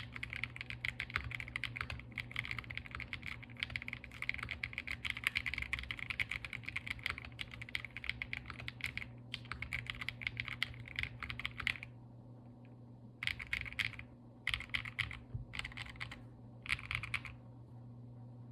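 Typing on a QK60 custom mechanical keyboard with lubed KTT Hyacinth linear switches, an FR4 plate and GeekArk PBT keycaps. A fast, dense run of keystrokes lasts about twelve seconds, then four short bursts of keys follow before the typing stops near the end.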